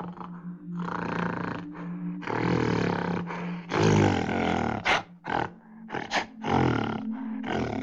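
A large animal giving a series of rough, growling roars: a few long calls, then several short ones near the end, over a faint steady low hum.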